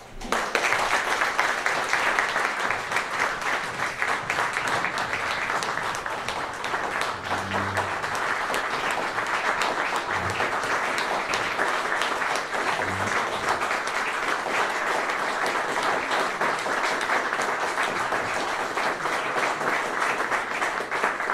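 Audience applauding: dense, steady clapping from many hands that starts abruptly and keeps up without a break.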